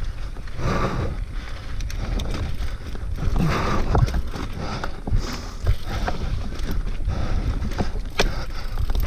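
Mountain bike descending a rocky trail at speed: wind buffeting the microphone over the rumble of tyres on dirt and rock, with rattles and knocks from the bike, sharp ones about four seconds in and again near the end.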